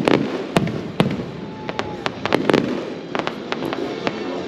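Fireworks display: a string of sharp bangs and pops from shells being fired and bursting, irregular, with tight clusters about halfway through and again a little later.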